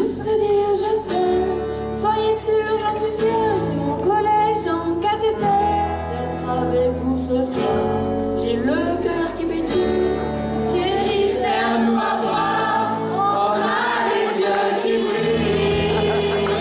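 A teenage choir of mixed voices singing a song together into microphones, with musical accompaniment.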